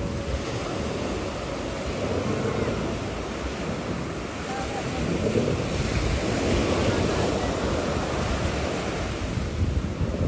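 Small sea waves breaking and washing onto the shore, swelling a little about halfway through, with wind buffeting the microphone.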